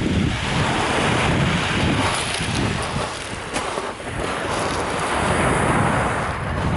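Small waves washing onto a shingle beach, their hiss swelling and fading twice, with wind buffeting the microphone.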